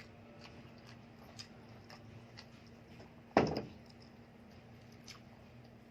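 Light scattered clicks of eating utensils against a plate, with one loud knock about three and a half seconds in.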